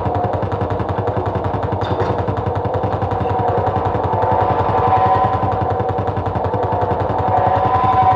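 Live amplified noise from a DIY metal contraption run through distorted effects pedals: a rapid, rattling low pulse under sustained feedback tones that shift slightly in pitch.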